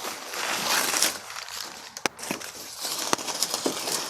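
Rustling and handling noise from parts being moved about, with two sharp clicks, about two seconds in and again about three seconds in.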